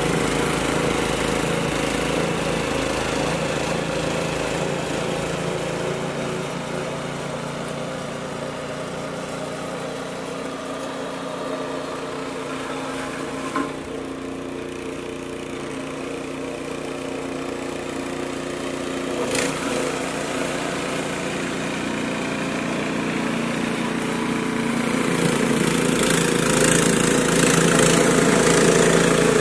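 Walk-behind snowblower's engine running steadily while clearing a driveway, fading as the machine moves away and growing louder as it comes back near the end. Two brief clicks partway through.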